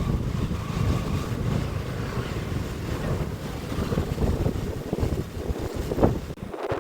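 Wind buffeting the microphone: an uneven low rumble with a brief sharper gust about six seconds in.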